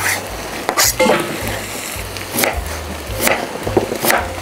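Background music with a deep, stepping bass line and sharp hits about once a second.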